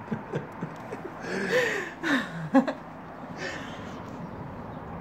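Short wordless vocal sounds from a person, chuckles and breathy laughs, over the first few seconds, then only a steady background hum of the city through the open window.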